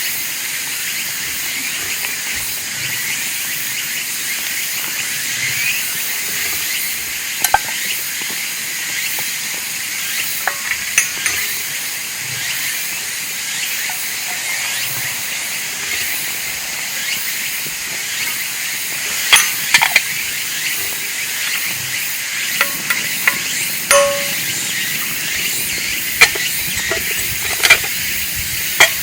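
Steady high-pitched chorus of late-summer insects, with scattered sharp clicks and pops, a small cluster of them about two-thirds of the way through.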